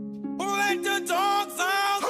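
Music: held low notes, with a voice-like melody in three short phrases of rising and falling pitch coming in about half a second in.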